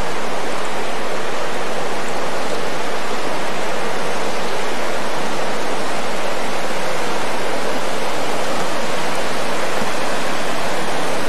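Steady, unchanging rushing of running water, like a creek flowing close by.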